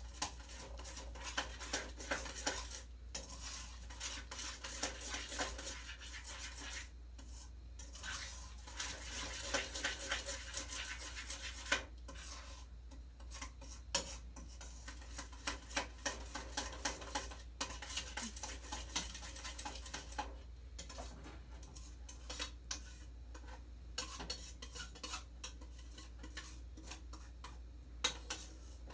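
A spoon stirring a sugar, Jell-O and corn syrup mixture in a large pan, with many irregular clinks and scrapes against the pan and a few brief pauses. The mixture is not yet boiling. A steady low hum runs underneath.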